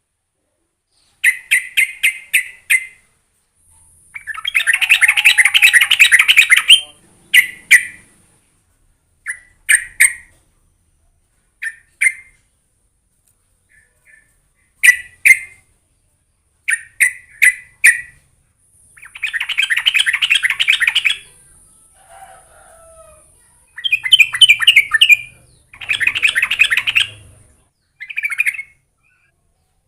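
Yellow-vented bulbul (trucuk) calling: short groups of bubbly chirps alternating with longer runs of rapid chattering that last two to three seconds, with brief pauses between phrases.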